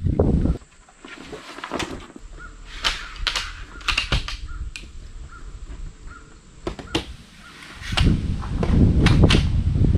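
Crows cawing, a run of short calls through the middle, with wind rumbling on the microphone over the last two seconds.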